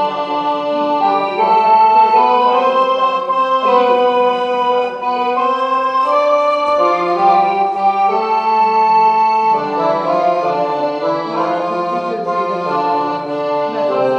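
Slow instrumental music: sustained chords under a melody on a reed- or organ-like instrument, the notes held and changing step by step.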